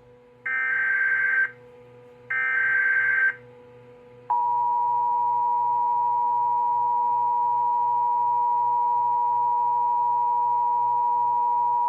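Emergency Alert System broadcast tones: two one-second bursts of SAME header data, then, about four seconds in, the steady two-tone EAS attention signal begins and holds. The sequence announces the start of an alert message, here a severe thunderstorm warning.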